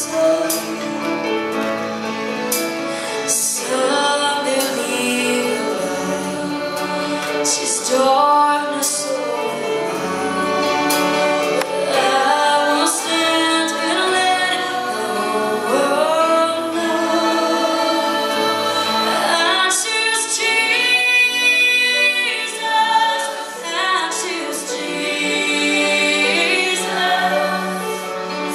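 Female lead singer performing a gospel worship song into a handheld microphone, with a church choir singing behind her and band accompaniment.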